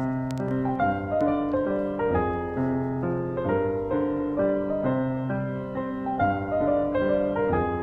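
Background music played on piano or electric piano, a gentle melody of steady, evenly paced notes.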